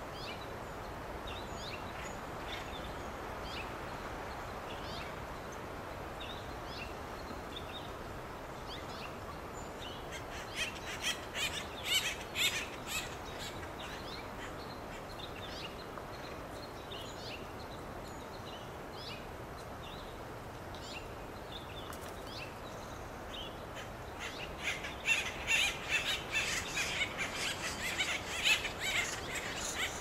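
Acorn woodpeckers calling: scattered single notes, then two bouts of rapid, raucous waka-waka calls, one about ten seconds in and a longer one from about 24 seconds, over a steady background hiss.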